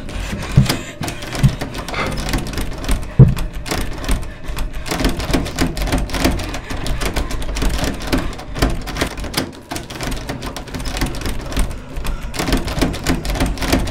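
A lever door handle rattled hard and fast against its latch, a dense clatter of clicks. Heavy thumps of the door being shaken come in the first few seconds.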